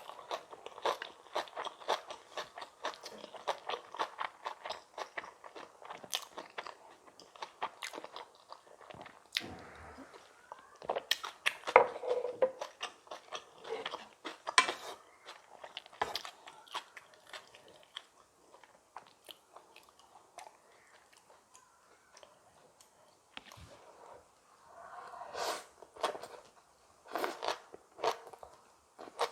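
Close-up eating sounds of kimchi bibimbap being chewed: quick, wet crunching and chewing, dense for the first several seconds, then sparser bites with short pauses, picking up again near the end.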